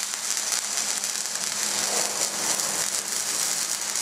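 Electric arc welding on steel: a steady, dense crackle and hiss from the welding arc, running without a break.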